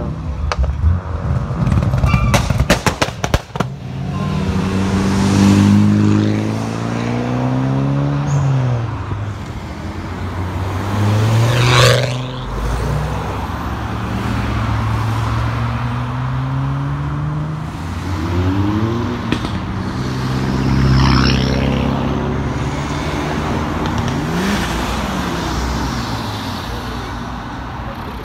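Cars driving past one after another, engines revving up and easing off as each goes by, with one sharp rising whine about twelve seconds in. About two seconds in comes a quick run of sharp cracks.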